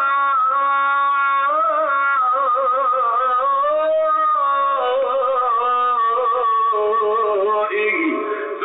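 Background music: a single melody line with wavering, ornamented pitch that glides up and down.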